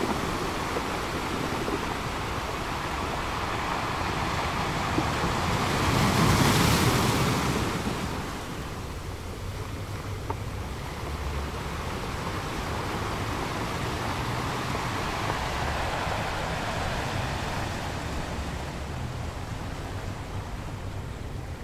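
Small waves washing onto a sandy beach, with wind on the microphone; the noise swells louder for a couple of seconds about six seconds in.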